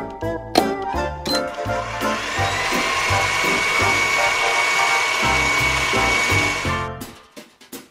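A small electric motor whirs: it spins up with a rising whine about a second and a half in, runs steady, and stops near the end. Light background music plays underneath.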